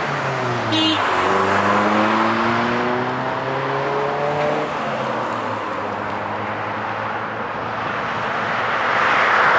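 Road traffic: a car's engine rising steadily in pitch as it accelerates for a few seconds, then the hum of tyres on the road, swelling near the end as another vehicle approaches.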